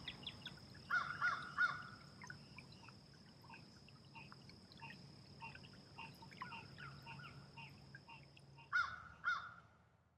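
Birds calling: a run of quick, short chirps, with loud harsh calls three times about a second in and twice near the end.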